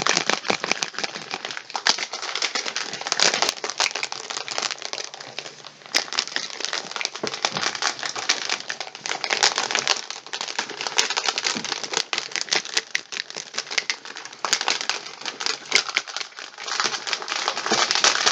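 Plastic shaker cup being shaken hard to mix energy-drink powder into water: rapid rattling and sloshing with a short pause about six seconds in.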